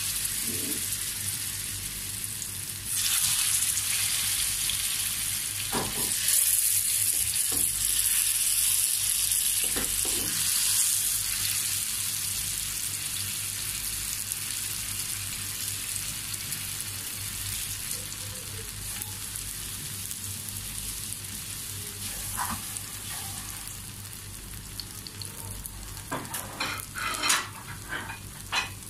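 Hot oil sizzling in a frying pan as mashed-banana dumplings shallow-fry. The sizzle jumps up about three and six seconds in as more dumplings go into the oil, then slowly dies down. A few short sharp clicks come near the end.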